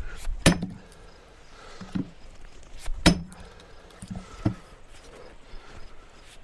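Splitting maul striking steel wedges driven into a black oak log: two loud, ringing metal-on-metal strikes about two and a half seconds apart, with lighter knocks between them.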